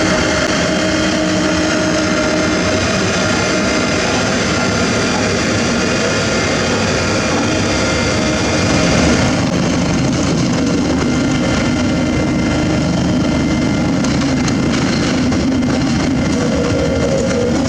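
Heavy diesel excavator working: engine and hydraulics running steadily, with several held whining tones over a loud continuous din. A little past halfway there is a brief swell, then the high hiss thins out.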